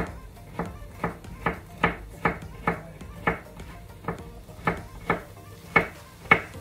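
Kitchen knife chopping bitter melon (ampalaya) on a cutting board: a steady series of sharp knocks, about two a second.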